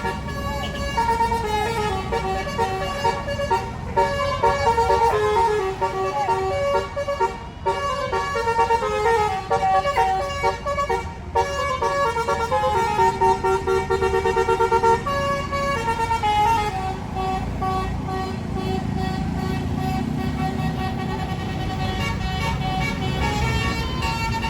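A bus's 'telolet basuri' multi-tone air horn plays a tune of quickly changing notes. After about 15 seconds the notes grow weaker over the low running of the bus engine.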